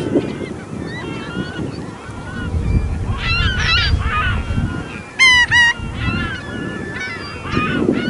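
Many birds calling over one another in a steady chorus of short pitched calls, with two loud calls a little after five seconds in.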